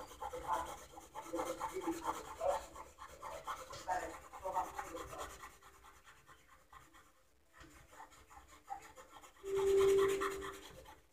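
Colored pencil scratching on paper in quick, light, irregular strokes, stopping a little past halfway. Near the end, a short steady tone sounds for about a second.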